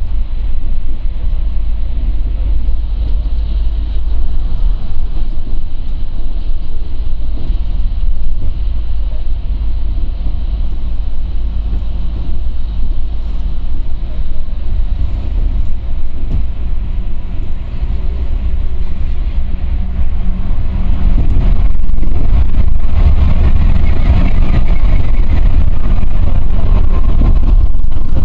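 Low, steady rumble of a Scania coach's engine and tyres heard from inside the cabin as it drives through a road tunnel. The noise grows louder about two-thirds of the way through.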